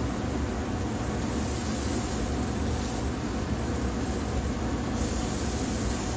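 Marinated beef short ribs sizzling on a hot kamado grill grate, a steady hiss over a low rumbling noise.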